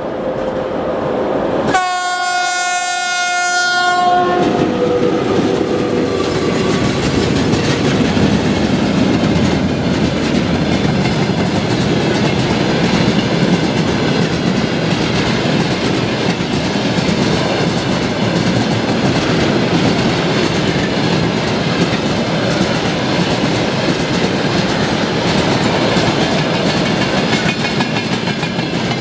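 VL80S electric locomotive sounds its horn, one blast of about two seconds starting about two seconds in, then its freight train of tank wagons rolls past with steady wheel clatter on the rails.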